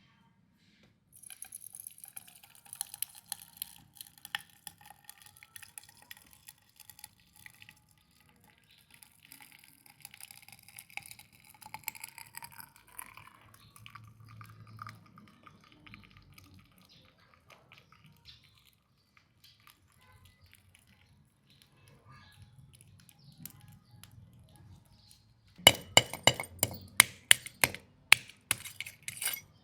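Light clinks, scrapes and taps from handling the shell and metal while casting molten aluminum into a snail shell, with a quick run of loud, sharp taps near the end.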